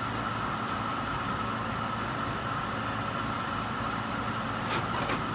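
A steady mechanical hum from a small motor, with a constant high whine over it. A few faint knocks come near the end.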